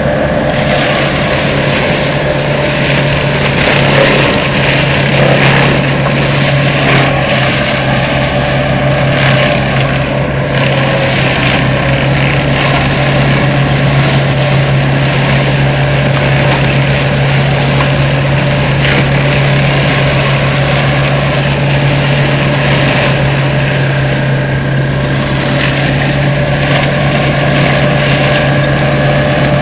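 ASV RC100 tracked skid steer running steadily with its Seppi MiniForst hydraulic mulcher driven. A constant engine note sits under a loud, even rushing noise with scattered crackles.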